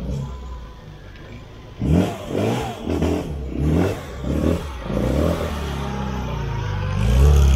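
A vehicle engine being revved: a low idle, then about five quick throttle blips that each rise and fall, then a steady rise in pitch near the end.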